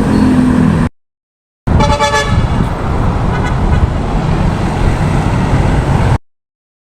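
Steady outdoor background noise, heavy in the low end, with a horn sounding briefly about two seconds in; the sound drops out to silence twice.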